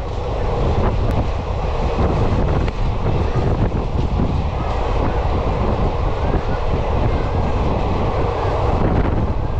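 Express passenger train running, a steady loud rumble of wheels and carriage, with wind buffeting the microphone.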